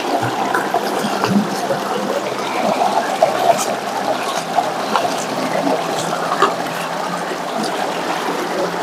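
Shallow river water running and trickling, with occasional faint clicks.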